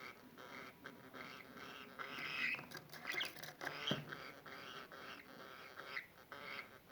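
Budgerigar chattering and warbling continuously, with a burst of sharper chirps and clicks in the middle.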